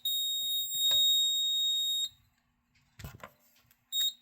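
High-pitched alarm sounder driven by a Moose Z900 alarm panel in fire mode: one steady tone for about two seconds, then a short blip of the same tone near the end. A brief knock comes about three seconds in.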